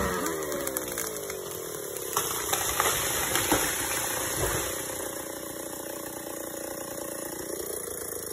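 Chainsaw coming off full throttle, its revs falling and settling to idle. There are scattered clicks and knocks about two to four seconds in.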